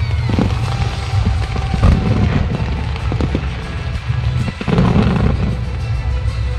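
Fireworks going off in a series of bangs and crackles, over loud music with a heavy bass.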